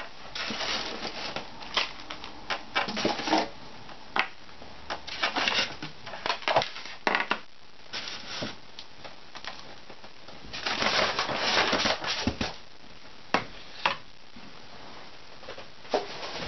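Packaging being handled and pulled apart while an RC plane's parts are unpacked: irregular crunching, rustling and scraping with sharp clicks and knocks, loudest in several bursts.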